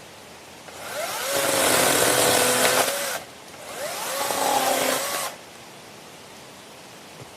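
Greenworks 40V brushless cordless chainsaw run in two bursts on the trigger, the first about 2 seconds long and the second about a second and a half. Each time the motor's pitch rises as it spins up, holds steady, then drops as the trigger is let go.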